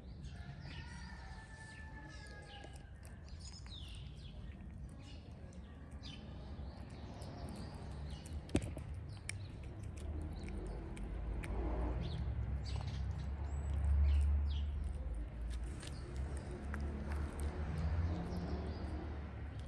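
Small birds chirping on and off over a low outdoor rumble that swells about two thirds of the way through, with one sharp click about eight and a half seconds in.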